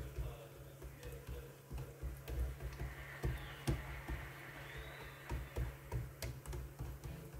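Oiled hands patting and pressing a thin sheet of semolina dough flat against a wooden cutting board, giving irregular soft thumps and light taps as the dough is stretched out for rgag leaves.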